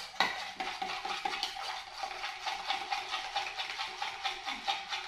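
A spoon stirring quickly in a cup, clinking and scraping in a rapid, even rhythm as chocolate powder is dissolved into hot tea.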